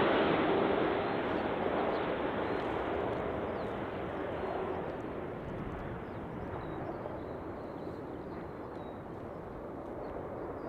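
Engine noise of a landing airliner fading away after it has passed overhead on short final: a rushing sound that dies down over about six seconds, then lingers as a low distant rumble.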